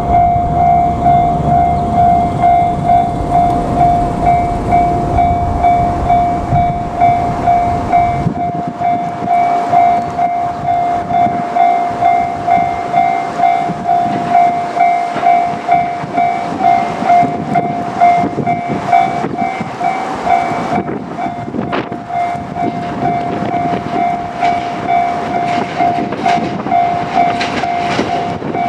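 Japanese level-crossing warning bell dinging steadily, a little more than one strike a second, as JR Kyushu 787-series trains pass. A low train rumble under the bell stops abruptly about eight seconds in, and wheel clicks come through in the later part.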